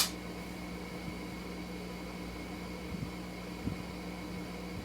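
Steady machine hum of the room's background, with a sharp click at the very start and two faint knocks a little after three seconds in.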